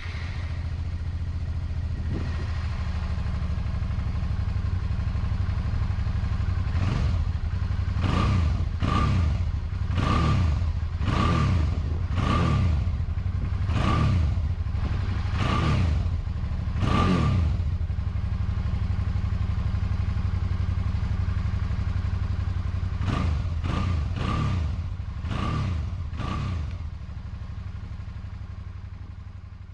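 Suzuki DL650 V-Strom's 645 cc V-twin engine idling steadily, blipped by hand in a run of about nine quick revs roughly a second apart, then after a pause a handful more.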